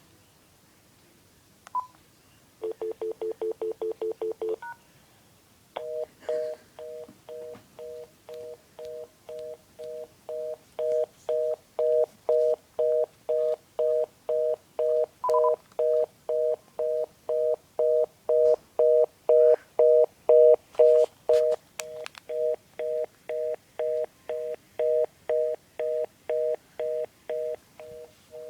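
Telephone line tones heard on a landline handset: a short keypad beep, then a rapidly stuttering dial tone for about two seconds. From about six seconds in, a busy signal repeats its two-tone beep at about two per second, with a couple of faint clicks and another keypad beep partway through.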